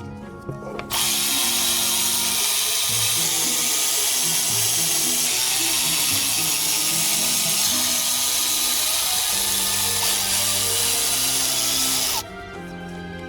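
Handheld power tool, likely the electric ratchet used on this job, running steadily for about eleven seconds; it starts abruptly about a second in and cuts off sharply near the end.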